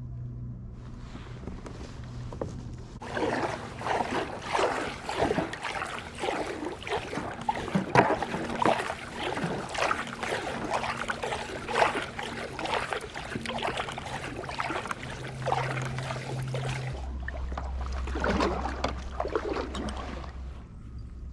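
Water splashing and sloshing in irregular bursts, starting about three seconds in and easing off near the end, over a steady low hum.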